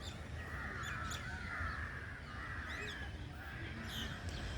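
Crows cawing, several harsh calls one after another, with thin high chirps of smaller birds over them and a steady low rumble underneath.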